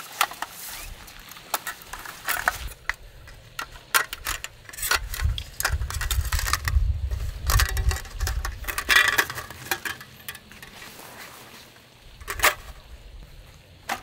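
Clinks, clicks and knocks of thin folding aluminium camp gear being unpacked and handled, mixed with rustling of fabric bags, with one sharper click near the end.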